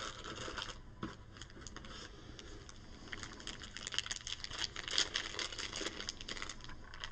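A small plastic bag crinkling as it is handled, with the small plastic pieces inside clicking and rattling against each other. It is a quiet, irregular run of light rustles and clicks that is busiest in the middle.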